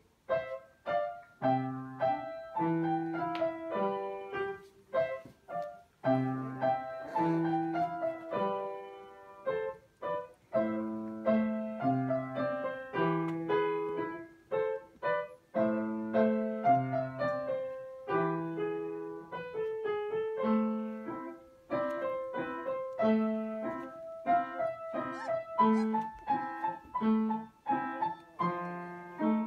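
Solo piano music: a brisk piece of struck notes and chords, starting abruptly right at the beginning.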